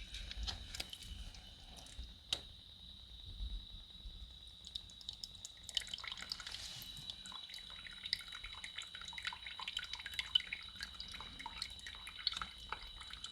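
Water dripping from a disconnected toilet supply connection, in sparse drops at first and much faster from about six seconds in: the valve is still trickling water after being shut off.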